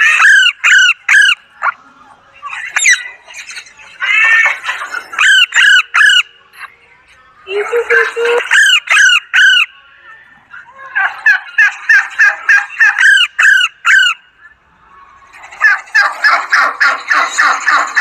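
Alexandrine parakeet calling: loud, sharp calls in quick runs, coming in several bursts with pauses between them, and faster chattering runs in the second half.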